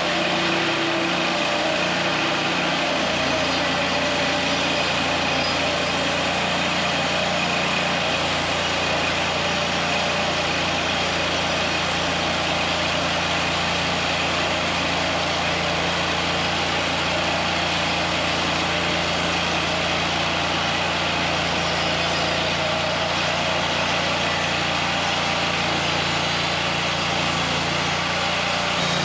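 WoodMizer LT40 Wide band sawmill running steadily at a constant pitch, with no let-up or change.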